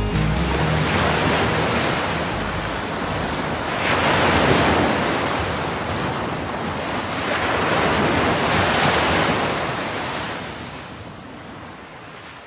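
Sea waves breaking and washing up a beach, surging louder twice about four seconds apart, then fading out near the end.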